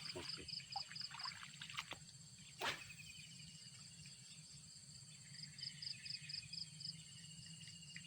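Insects chirping outdoors: a fast, evenly pulsed high chirp comes in two runs, near the start and again about two-thirds of the way through, over a steady high drone. A single sharp click sounds about two and a half seconds in.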